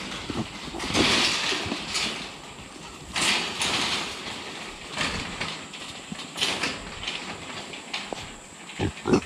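Feral hogs in a corral trap calling in short, noisy bursts every second or two, with a louder thump near the end.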